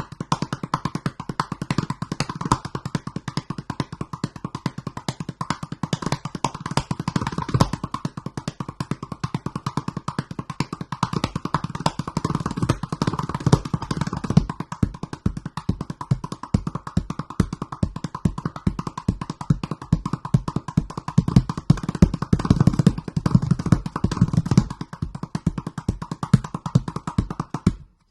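Extra-large 47 cm calabash gourd drum played by hand in a fast, dense groove of rapid strokes. Deep bass tones mix with brighter slaps, and the playing breaks off at the very end.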